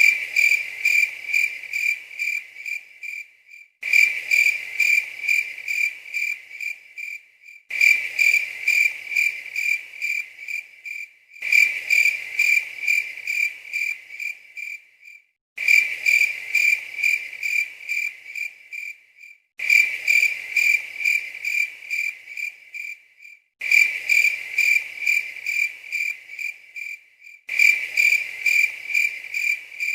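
Cricket chirping sound effect: evenly spaced high chirps in runs of about three and a half seconds, repeating with a short gap about every four seconds as a loop.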